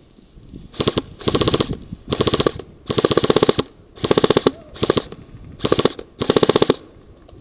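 Airsoft rifle firing on full auto in about eight short bursts of rapid shots, each a half second or less.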